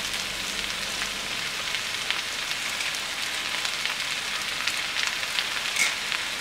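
Vegetables and cooked basmati rice frying in a wok: a steady sizzling hiss with scattered small crackles.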